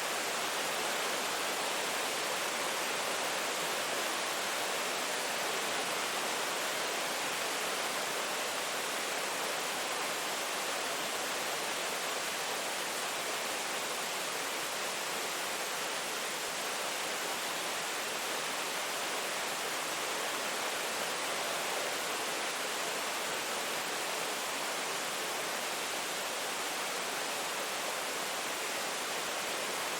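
Steady, even rain hiss, with no thunder, drips or other distinct events.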